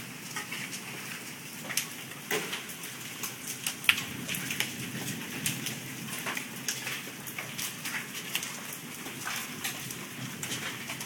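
Hailstones falling and striking pavement and a roof amid rain. There is a steady hiss, with many sharp, irregular clacks of single stones hitting, several a second.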